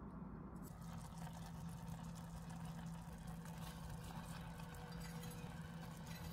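Faint crackling from a cast-iron pot of rice cooking on the stove, over a steady low hum.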